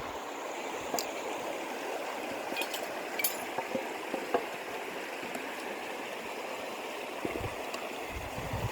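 Steady rush of flowing water, with a few scattered light clicks and clinks.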